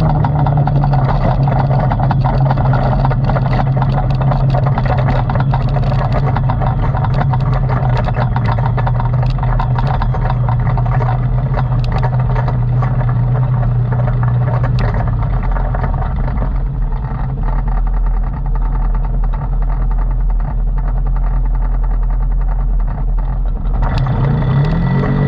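ATV engine running steadily under way; its pitch drops about 15 seconds in and starts to rise again near the end as it revs up.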